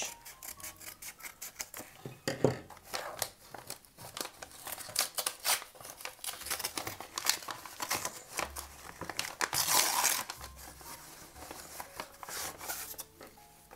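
Small scissors snipping across the end of a kraft-paper mailing envelope, with the paper crinkling as it is handled and torn open; a longer, louder stretch of tearing paper comes about ten seconds in.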